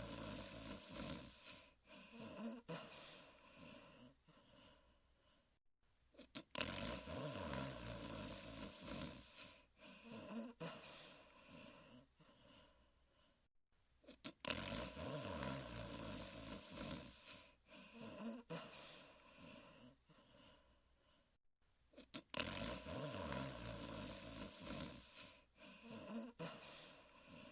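Huckleberry Hound's cartoon snoring: a loud, rough snore that fades away, repeating about every eight seconds in an identical loop.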